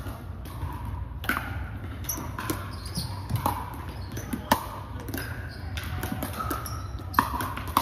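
Pickleball paddles hitting the hollow plastic ball and the ball bouncing on the court during a rally: a string of sharp, irregularly spaced pops, about ten over several seconds, echoing in a large gym.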